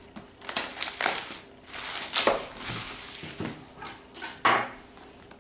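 Sealed trading card box being handled and opened: irregular crinkling, scraping and knocking of cardboard and wrapper, with sharper cracks about two and four and a half seconds in.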